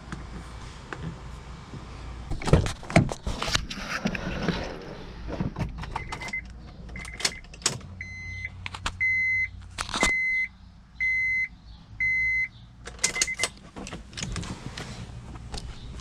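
Electronic beeper sounding a steady high beep about once a second, each beep about half a second long, eight in all, the first two fainter. Before the beeps come a few clicks and knocks of handling.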